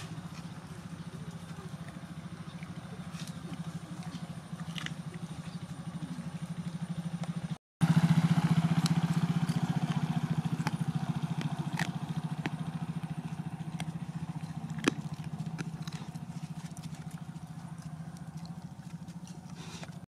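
Small motorcycle engine running steadily. It is louder after a short break about eight seconds in, then slowly fades. A single sharp click comes about two-thirds of the way through.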